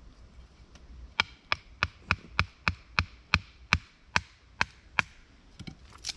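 A knife being driven through a piece of firewood by strikes from a wooden baton, splitting it for kindling: about a dozen sharp wooden knocks at roughly three a second, slowing slightly, then a few faint clicks near the end.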